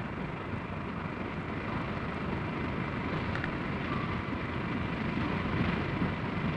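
SNCF 141 C steam locomotive making a steady rushing noise that slowly grows louder.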